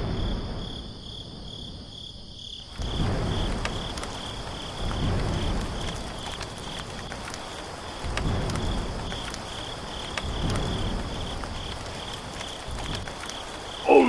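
Crickets chirping in a steady pulsing rhythm; from about three seconds in, a rushing rainstorm sound effect joins them, with low rumbles swelling every two or three seconds.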